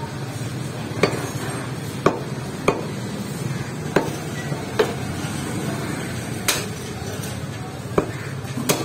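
Butcher's cleaver chopping beef on a wooden stump block: about eight sharp strikes at uneven intervals.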